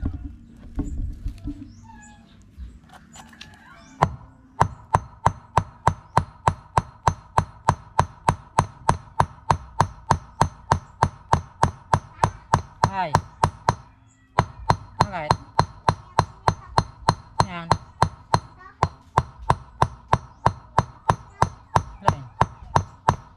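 Steel claw hammer striking the heated end of a stainless steel rod on a rusty block used as an anvil, flattening the tip. The blows are sharp and ring like metal, steady at about three a second. They start about four seconds in and pause briefly about fourteen seconds in.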